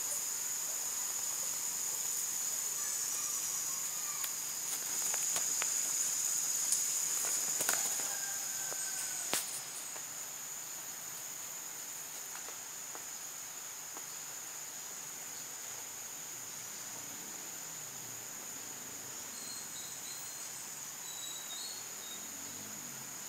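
Insects calling in a steady, high-pitched drone, with a few sharp clicks in the first half, the loudest about nine seconds in.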